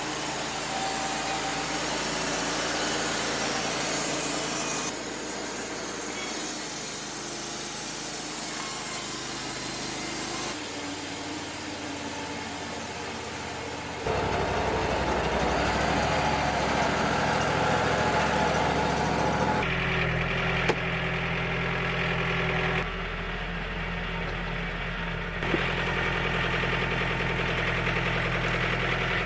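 Wood-Mizer LT-35 band sawmill running, its engine and band blade cutting through Douglas fir logs. The sound changes abruptly several times as clips are joined, with two sharp clicks in the later part.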